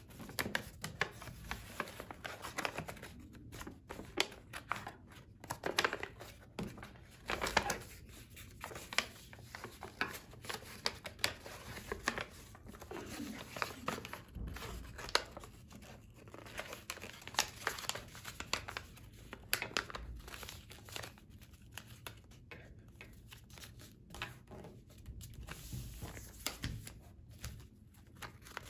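A square sheet of paper crinkling and rustling in irregular crackles as it is folded and creased by hand, the petal fold that turns a folded square into an origami crane's bird base.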